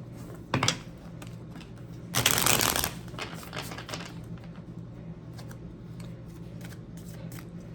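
Tarot cards being handled: a quick shuffle of the deck about two seconds in, with light clicks and taps of cards before and after.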